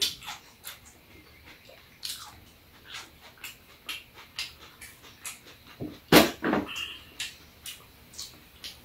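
Eating and drinking at a metal serving tray: scattered clicks and knocks of a spoon, chopsticks and a ceramic mug against the tray and bowls, with mouth noises of eating and sipping. The loudest knocks come about six seconds in.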